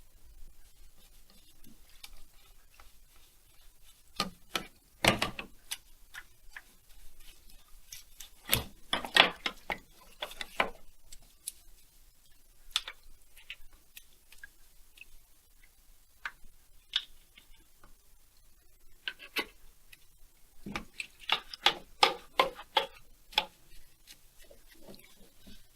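Chainsaw parts and hand tools being handled on a workbench: scattered clicks, taps and light knocks, busiest around 5, 9 and 22 seconds in.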